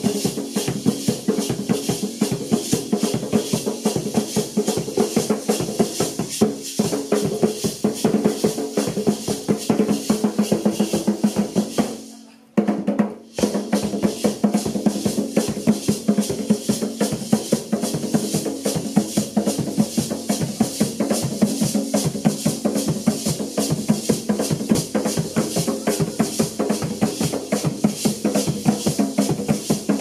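Traditional Kalinago hand drums playing a fast, steady rhythm to accompany the basket dance. The drumming drops out briefly about twelve seconds in, then resumes.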